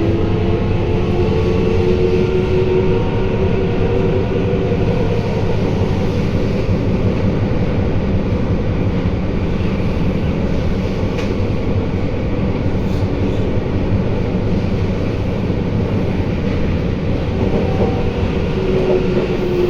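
Sendai Subway Namboku Line 1000N series train running, heard from inside the car: a steady rumble of wheels on rail. A faint gliding whine from its IGBT-VVVF traction inverter fades out in the first few seconds and returns near the end.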